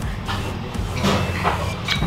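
Restaurant room noise: a steady low hum with a few short clatters and rustles scattered through.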